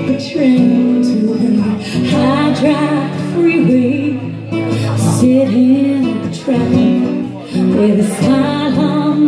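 Live acoustic performance of a relaxed country-jazz song: a woman sings a melody into a microphone over a man's acoustic guitar accompaniment.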